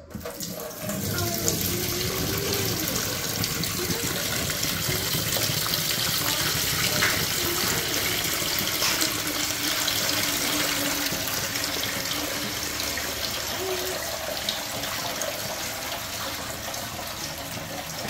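Water pouring in a steady stream from a full dehumidifier collection tank into a stainless steel kitchen sink, starting about half a second in.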